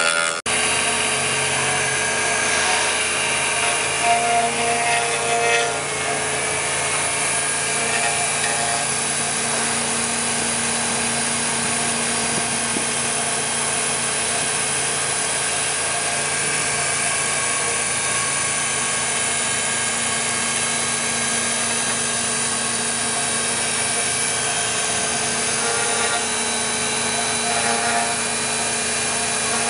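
CNC milling machine's spindle running steadily while an end mill cuts into a bubinga wood block: a constant machine hum with a few held tones over the hiss of the cutting.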